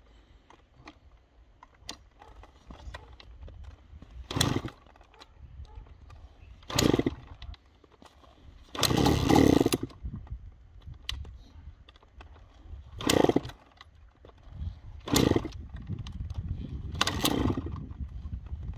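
Honda CR85's 85 cc two-stroke single being kick-started cold: it fires in six short bursts, the longest about nine seconds in, and dies away between them. Near the end it keeps running unevenly at a low idle.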